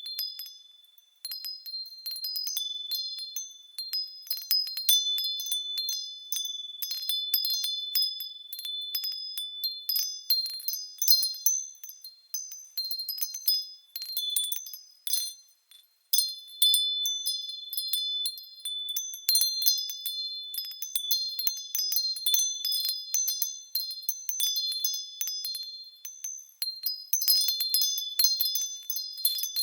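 Japanese fūrin wind chimes rung by the wind, clear high tones struck irregularly and ringing on, with a short lull about halfway through.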